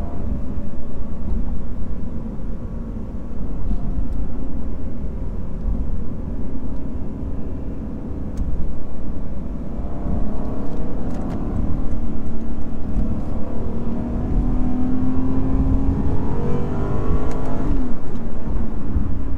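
Lexus IS500 F Sport Performance's naturally aspirated 5.0-litre V8 pulling under acceleration, its engine and exhaust note rising and falling with the revs. A long climb in pitch in the second half ends in a sudden drop, an upshift, over a steady low road rumble.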